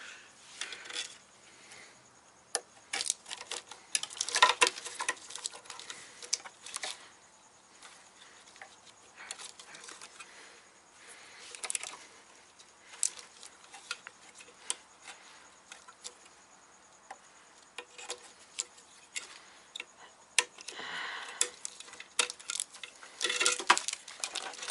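Irregular small clicks and light plastic rattles of wiring and plastic clips being handled and pried out of a car's engine bay, coming in bunches with short pauses between.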